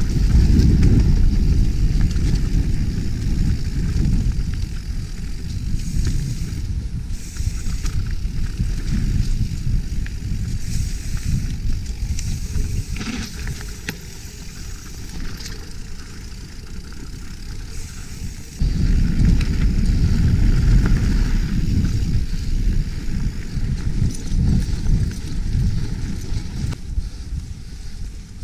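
Rough, steady rumble of a mountain bike ridden fast over dirt singletrack, heard from a camera on the rider. It eases off about halfway through, then comes back up suddenly about two-thirds of the way in.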